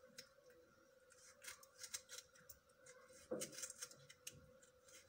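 Faint knife cuts through a tomato held in the hand as it is sliced into rounds: a few soft, irregular clicks, the clearest about three seconds in, over a faint steady hum.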